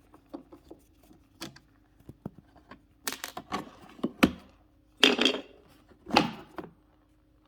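Clicks, scrapes and rattles of small metal and plastic parts being worked loose by hand, as the latch handle, cover and lock cylinder are taken off a Camaro T-top panel. The sounds come in short, irregular bursts with a few sharp clicks between them.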